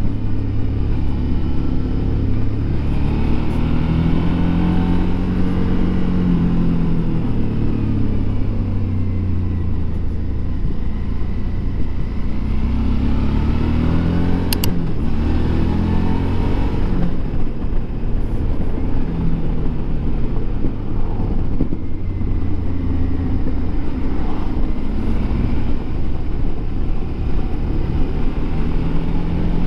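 Suzuki V-Strom DL650 XT's V-twin engine running as the motorcycle is ridden, its pitch rising and falling several times with the throttle. There is a single sharp click about halfway through.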